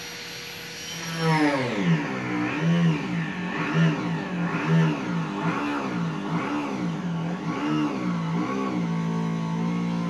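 A motor engine revving up and down over and over, about one rise and fall a second, over a steady lower hum; before that a steady tone drops in pitch about a second in.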